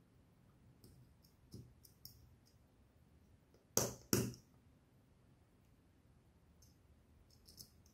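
Small clicks and handling taps of AA NiMH battery cells being pulled from and fitted onto the razor's battery board by hand; two sharper clicks close together about four seconds in, with fainter ticks before and near the end.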